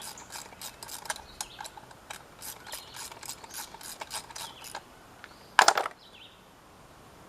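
Hand ratchet clicking at about four clicks a second, backing out an 8 mm bolt on a motorcycle's front sprocket cover. The clicking stops, and a short, loud metallic rattle follows about five and a half seconds in.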